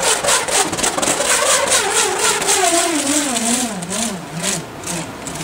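Hex nut whirling around inside an inflated rubber balloon, making a loud rattling buzz with a humming whine. The whine wavers and falls steadily in pitch as the nut loses speed.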